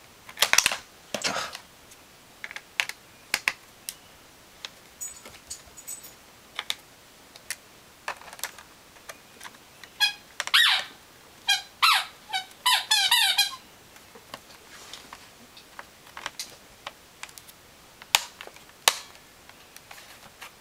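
A screwdriver tightening the screws of a Dell Inspiron laptop's memory compartment cover: scattered small clicks of metal and plastic, with a run of quick squeaky scraping strokes about halfway through.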